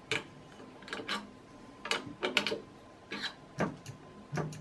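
Irregular light clicks and taps from a 3D printer's bed carriage being handled while its V-wheel eccentric nuts are checked and adjusted for looseness.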